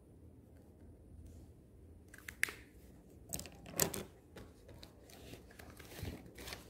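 Loose sheets of paper being picked up and handled on a desk: several short rustles and crinkles starting about two seconds in, the loudest near the middle.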